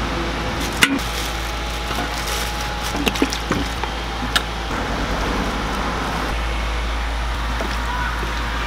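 A few light clicks and taps of cooking utensils against a steel pan and a plastic tub, over a steady background hum and rumble.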